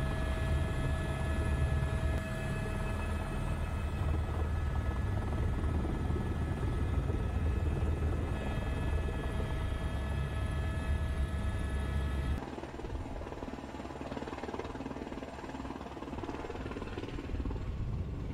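Helicopter cabin noise: a steady low rotor drone with a constant high turbine whine. About twelve seconds in it cuts off abruptly to a quieter, hissy outdoor background.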